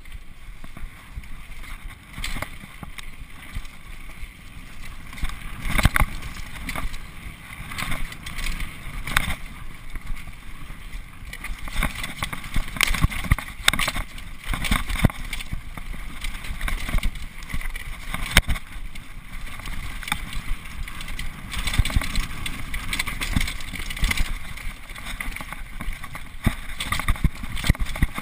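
Xprezo Furax freeride mountain bike descending a rough dirt trail at speed: a steady rush of tyre and trail noise with frequent sharp knocks and clatters as the bike hits bumps.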